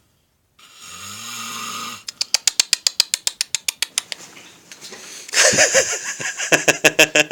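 A man snoring in his sleep: a drawn-in snoring breath, then a fast rattling run of clicks, about ten a second, for a couple of seconds. Near the end comes a louder, pitched, voice-like sound.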